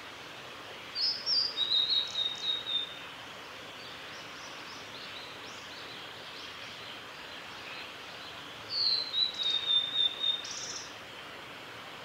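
Male blue-and-white flycatcher singing: two song phrases about seven seconds apart, each a couple of seconds of high notes that end in a falling slur, over a steady background hiss.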